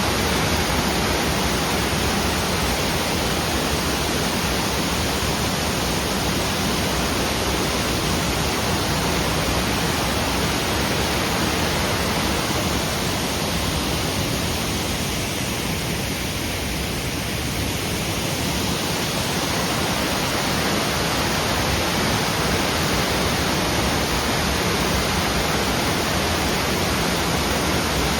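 Running water rushing steadily, an even hiss with no breaks, a little softer for a few seconds about halfway through.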